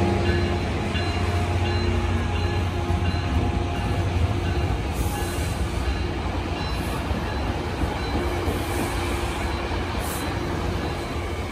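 Diesel-hauled Tri-Rail bi-level commuter train rolling past and pulling away, a steady low engine drone with wheels running on the rails, slowly fading. A few brief high-pitched squeals from the wheels in the second half.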